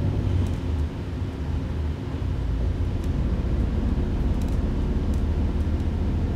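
Steady low rumble of a bus's engine and road noise, heard from inside the passenger cabin.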